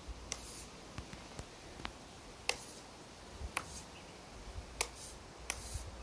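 A series of sharp clicks, roughly one a second, from the radio transmitter's switch being worked to tilt the drone's camera gimbal, with a few short hisses in between.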